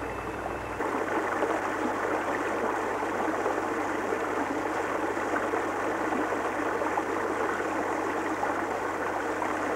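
Steady rushing sound of running water, a little louder from about a second in.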